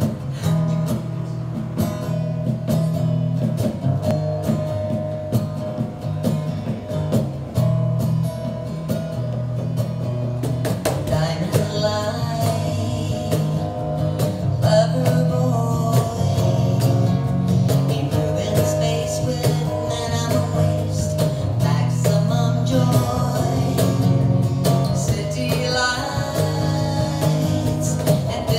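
Live acoustic duo playing a song: steel-string acoustic guitar and a hand-played cajón keep a steady groove. A woman's singing voice comes in about ten seconds in.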